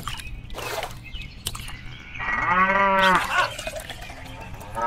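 A cow mooing once, about two seconds in: a single call of about a second that rises and falls in pitch. A short rush of noise comes just before it, near the start.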